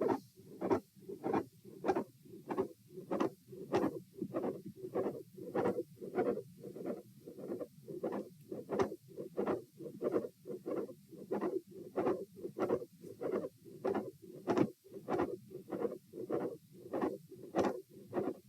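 Human heartbeat heard through a stethoscope at auscultation position A, with the subject standing: a steady, regular run of short low thumps. The heart has a mid-systolic click and a split second heart sound.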